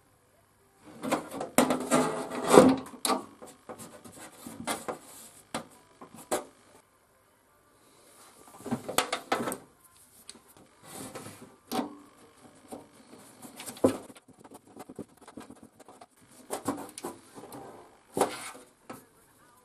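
Plasma cutter cables and connectors being handled: the rubber-sheathed earth-clamp cable plug with its brass pin and the metal earth clamp rubbing and clicking as they are worked with the hands and pushed toward the machine's front-panel sockets. The sound comes in irregular bursts of rustling with sharp clicks, separated by short quiet gaps.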